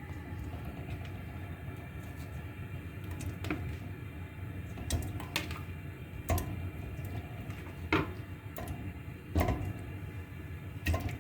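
Kitchen work sounds: a handful of short, sharp knocks and clinks of pots and utensils being handled, over a steady low hum.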